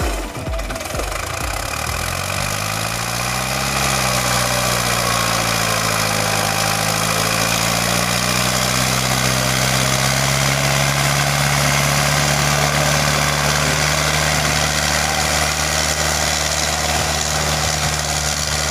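Hindustan 80 tractor's diesel engine revving up from slow low thumping, its pitch climbing a couple of seconds in, then running steady and loud under the heavy load of a full sugarcane trolley, hard enough to lift the front wheels.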